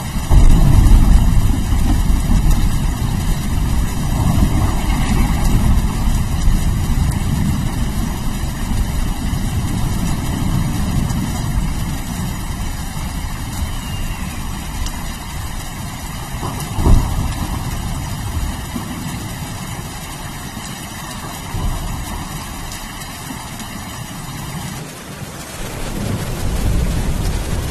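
Steady rain with long rolling thunder: a deep rumble that is loudest in the first two seconds and goes on throughout, with a sharp thunder crack about 17 seconds in.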